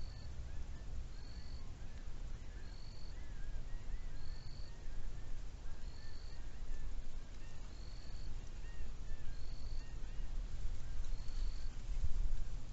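Outdoor chorus of small calling animals: many short chirping notes overlap, while one caller repeats a short high note evenly about once a second, over a steady low rumble.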